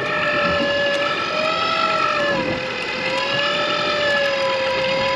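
Electric deep-drop fishing reel winding line up from the bottom, a steady motor whine that wavers slightly in pitch.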